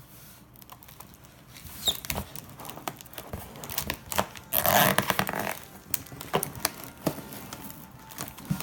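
Irregular clicking and crinkling handling noises, with a louder rustling burst about halfway through.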